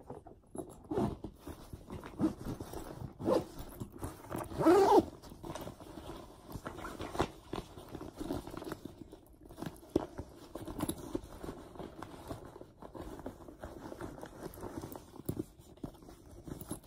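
Zipper being drawn closed around a packed Ju-Ju-Be Be Prepared fabric bag, with fabric rustling and knocks from handling the bag. The loudest zip stroke comes about five seconds in.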